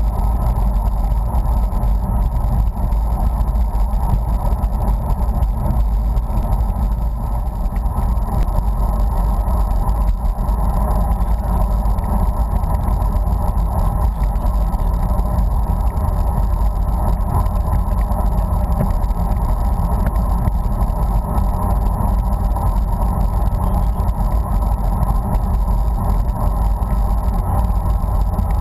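Steady wind rush and road rumble on the microphone of a camera riding along on a moving bicycle, deepest at the low end and unbroken throughout.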